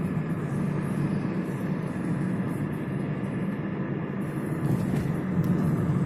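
Chevrolet Aveo heard from inside the cabin while driving at low city speed: a steady hum of engine and tyre noise.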